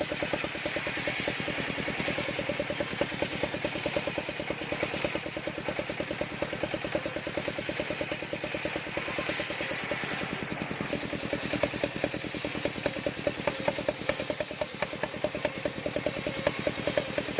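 Engine powering a circular-saw sawmill, running steadily with a rapid, regular chugging beat.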